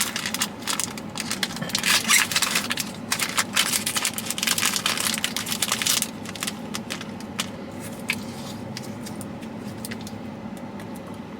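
Dense rustling and clicking, like things being handled, for about the first six seconds, over a steady low hum of a car interior. After that the clicks thin out to a few scattered ones over the hum.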